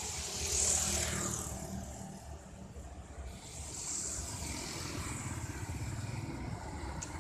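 Road traffic: vehicles passing close by, engine rumble under tyre hiss that swells and fades, loudest about half a second in and again about four seconds in.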